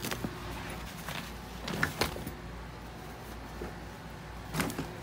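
Plastic bags of packed clothes rustling as they are handled, with a few short light knocks, over a steady low hum.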